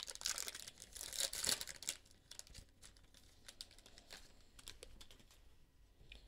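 Foil wrapper of a football trading-card pack being torn open and crinkled for about two seconds, followed by faint clicks and slides of the cards being handled.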